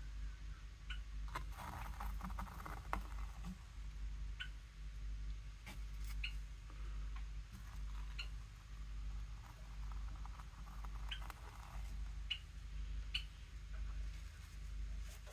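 Fine paintbrush stroking and dabbing acrylic paint onto paper: soft scratchy strokes and scattered small ticks over a steady low hum.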